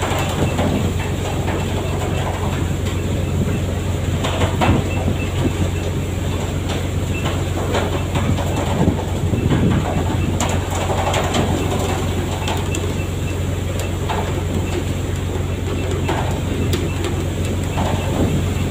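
Fishing boat's engine running at a steady low drone, with irregular knocks and clatter over it.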